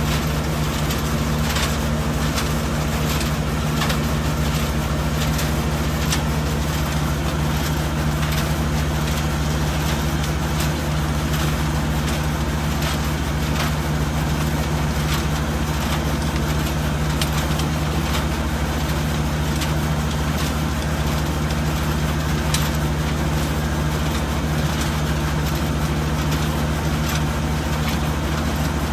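Revolver RT508 trommel screen running steadily, its engine giving a constant low drone, with scattered short clicks and knocks over it throughout.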